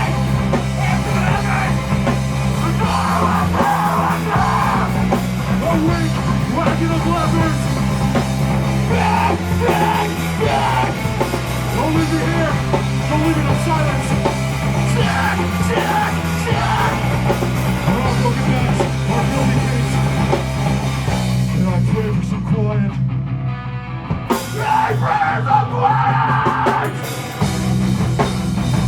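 Hardcore punk band playing live and loud, with heavy low chords that change every few seconds and shouted vocals. The sound thins out briefly about 22 seconds in, then the full band comes back in.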